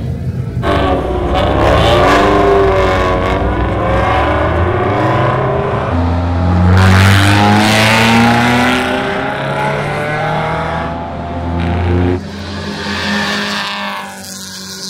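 Mazda MX-5 race car's four-cylinder engine under hard acceleration on track, its pitch climbing and stepping with the gears. The loud engine note drops off sharply about twelve seconds in to a lower, quieter running.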